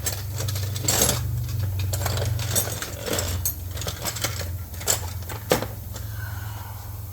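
Metal hand tools clinking and clattering irregularly as someone rummages through a tool bag, with a few sharper clanks about a second in and near five seconds in, over a steady low hum.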